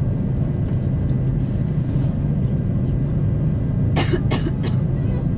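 Steady low rumble of an Airbus A340-300's cabin on the ground with its four CFM56 engines idling. About four seconds in, a few short sharp sounds come close together.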